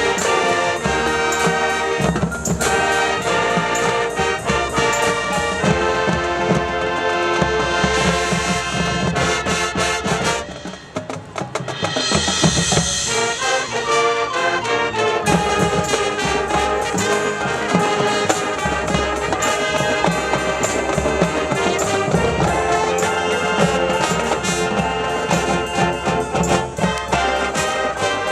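High school marching band playing its field show: trumpets and trombones carrying the tune over percussion. The sound drops away briefly about ten seconds in, then the full band comes back in loudly.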